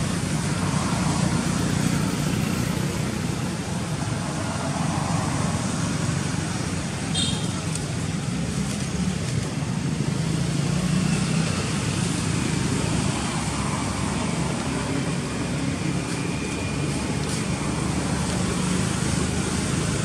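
Steady low rumbling outdoor background noise, with a brief high chirp about seven seconds in.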